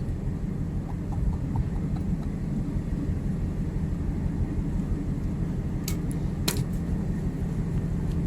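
Steady low rumble and hum of a ship's machinery, with a couple of short sharp clicks about six seconds in.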